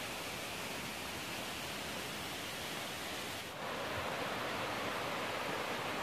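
Steady rushing of flowing water, an even hiss-like roar. About halfway through it shifts abruptly to a slightly louder, fuller rush with less hiss on top.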